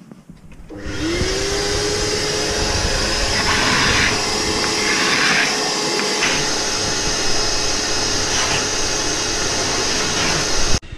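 Shop vacuum switched on about a second in, its motor rising quickly to speed and then running steadily, pulling through a hose on a scraper. Old antifouling paint is being scraped off a fibreglass hull and sucked up, heard as a few louder rasping patches a few seconds in. The sound cuts off suddenly near the end.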